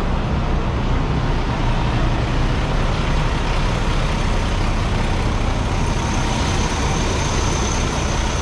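Semi truck's diesel engine idling close by: a steady, continuous low rumble.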